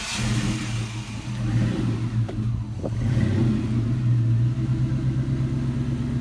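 Ford Mustang GT 4.6-litre V8, just started and running at idle through new Thrush welded mufflers. The failed mass airflow sensor is unplugged, which is what lets the engine keep running. The idle grows a little louder about three seconds in.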